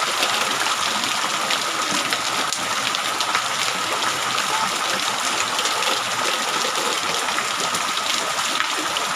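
Rain pouring down steadily: a dense, even hiss of rainfall and gushing water.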